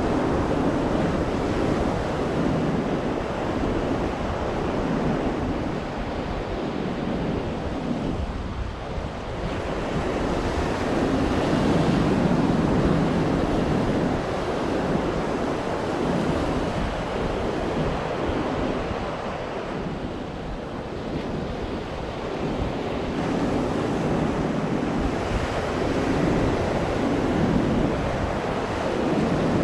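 Atlantic surf breaking on a sandy beach, a steady wash of waves that swells and ebbs, louder about a third of the way in and again near the end, with wind buffeting the microphone.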